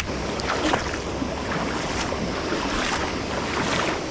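Steady rush of water from a river below a dam spillway, with scattered short splashes from wading through shallow water.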